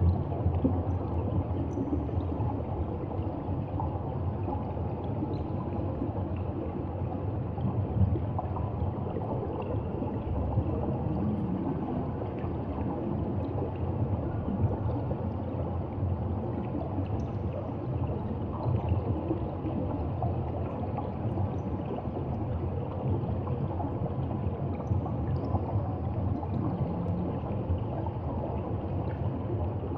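Steady low underwater rushing and gurgling of moving water around a submerged camera, with faint scattered clicks.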